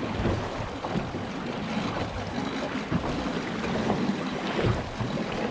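Wind buffeting the microphone with water sounds, aboard a small boat on the sea.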